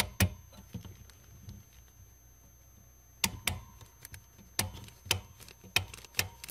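A series of sharp clicks and knocks, about nine of them, several in quick pairs, over a faint steady low hum.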